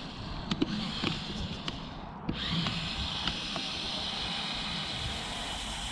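Lego RC crawler's electric drive motors whining steadily under load from about two seconds in, after a run of light plastic clicks and knocks.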